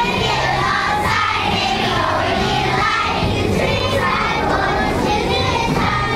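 A group of young children singing together over a musical accompaniment.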